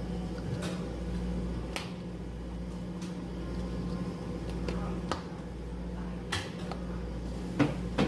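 Cafe work sounds behind the counter: scattered sharp clicks and taps of cups and utensils over a steady machine hum.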